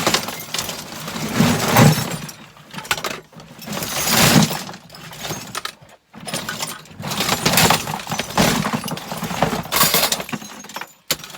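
Mixed scrap tipped out of a tub onto a workbench: pieces clattering and sliding out in several long rattling pours with short pauses between them.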